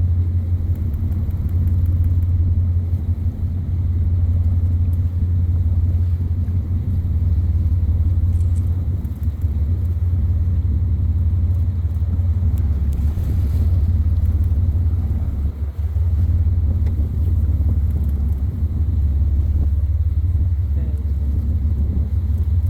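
Whale-watching boat's engine running steadily, a loud, even low drone.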